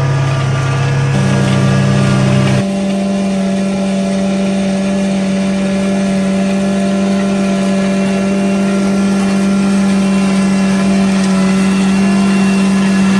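Kärcher MIC 34 multi-purpose municipal machine's engine running steadily. About two and a half seconds in, its low hum drops away abruptly and a higher, steady tone carries on.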